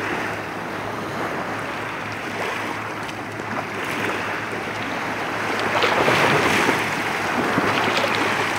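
Small waves washing up onto a sandy beach, swelling louder about six seconds in, with wind on the microphone.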